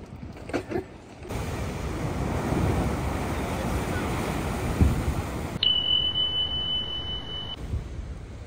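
Sea surf rushing and wind buffeting the microphone, a loud, churning noise. Near the end a steady high-pitched tone sounds for about two seconds over it.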